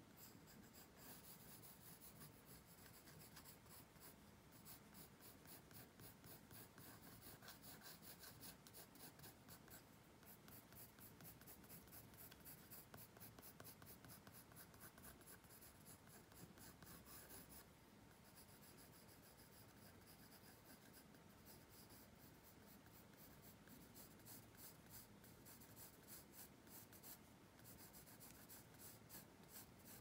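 Colored pencil scratching on paper in quick short strokes, several a second, as when shading, with a few brief pauses.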